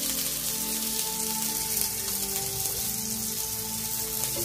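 Fish frying in oil on a heated stone, a steady sizzling hiss, under background music with long held notes.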